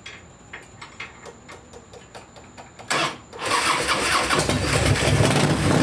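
Harley-Davidson V-twin engine starting: a series of light clicks, then the starter cranks about three seconds in and the engine catches and runs. The start relay on this bike sticks and has to be tapped before it will start.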